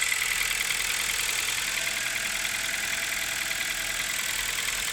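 Kia Rio petrol engine running at idle with a steady knock from the top of the engine, which new hydraulic valve lifters have not cured; the owner does not know its cause.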